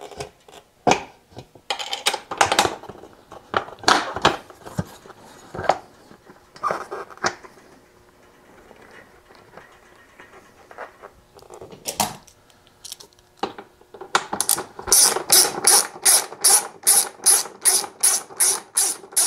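Scattered clicks and knocks of a bolt and metal bracket being handled, then, from about three-quarters of the way in, a socket ratchet clicking evenly, about three clicks a second, as it drives a bolt into a motorcycle's rear fender bracket.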